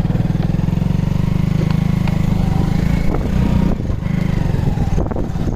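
Motorcycle engine running steadily as the bike rides along, heard up close from the seat behind the rider.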